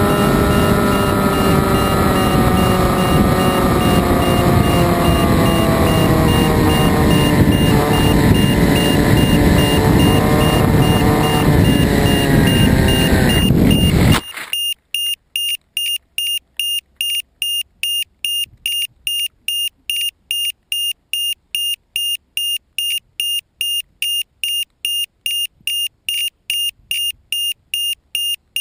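RC flying wing's motor and propeller running with wind rush, its pitch sinking slowly, until the wing comes down into the grass about 14 seconds in and the sound cuts off abruptly. After that an electronic beeper on the model beeps steadily, about three high beeps a second.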